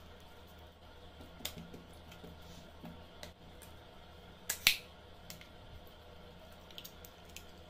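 Slime being pressed and handled along with small plastic pots and lids in a plastic tray, giving a few scattered sharp clicks and pops; the loudest is a quick double click about halfway through.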